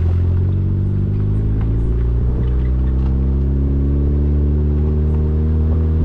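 Car engine and drive noise, picked up from outside the moving car: a steady low engine hum whose pitch rises slightly over the first few seconds, then holds.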